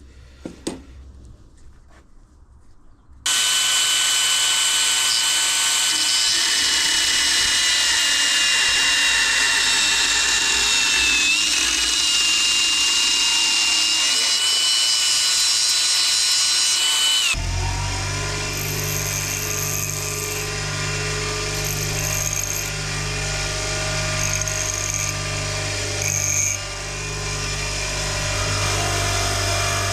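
Power tool cutting the long engine mounting bolts down to length: it starts suddenly about three seconds in and runs steadily with a high whine. About seventeen seconds in, the sound changes abruptly to a lower, humming machine sound with short high whines.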